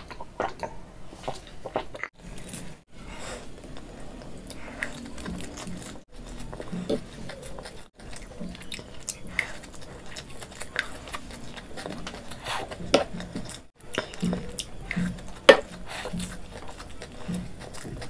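Close-miked chewing of noodles: a steady run of small mouth clicks and smacks with a few louder bites, broken by several brief gaps.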